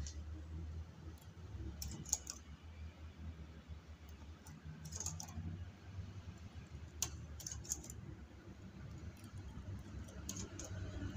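Small, irregular metal clicks as a multi-prong transfer tool hooks knitted stitches back onto the needles of a chunky knitting machine, over a low steady hum.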